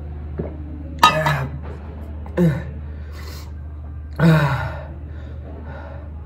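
A man's pained, breathy gasping cries, three of them, each sliding down in pitch, as he reacts to the burn of an extremely hot chili chip.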